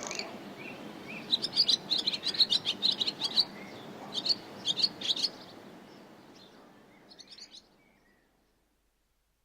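Barn swallow twittering: a quick run of short, high chirps, then a few fainter chirps, with the background hiss fading out about three-quarters of the way in.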